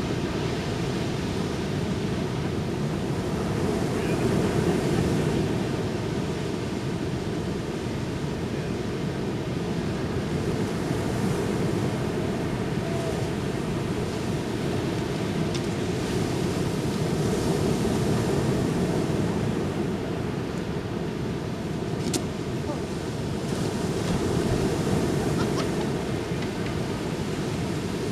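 Ocean surf washing onto a beach: a steady rush of breaking waves that swells and eases every several seconds.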